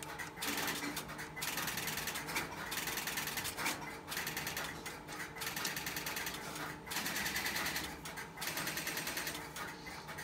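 Rapid, irregular mechanical clicking and rattling at a GTE 120B payphone while a call to a busy number is placed.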